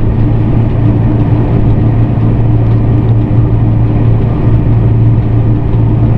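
Steady running noise inside the cab of a VL11M electric locomotive under way: a constant low hum under a dense rumble, with no sudden events.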